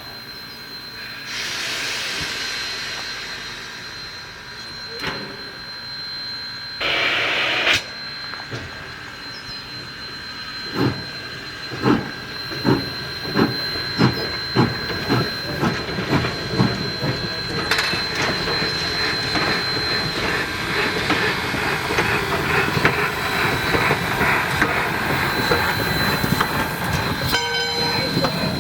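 ALCO 2-8-2 Mikado steam locomotive starting a train: a loud burst of steam about seven seconds in, then exhaust chuffs that begin about one a second and quicken steadily as it gathers speed.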